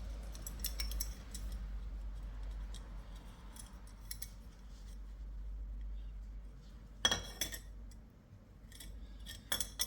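Small metal parts clicking and clinking as a little square nut and Allen-head bolt are handled and fitted into a hole in a steel exhaust part. The clicks are scattered, with a quick cluster about seven seconds in and another near the end.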